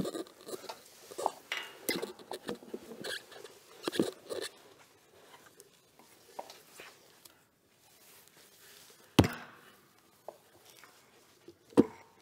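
Knocks, scrapes and clatter of someone climbing a ladder up into a roof space, with one sharp bang about nine seconds in and another just before the end.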